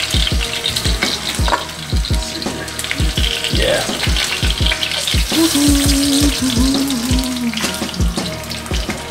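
Chicken wings frying in hot oil in a skillet over a high gas flame, a steady sizzle.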